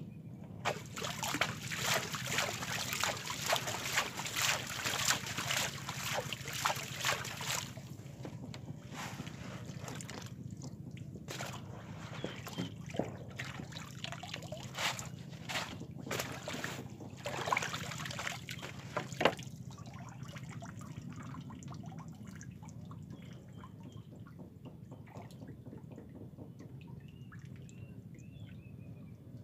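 Pond water splashing and trickling as hand scoop nets are dipped and lifted, water draining through the mesh. Busiest for the first several seconds, then scattered splashes and drips until about two-thirds through, after which it goes quieter.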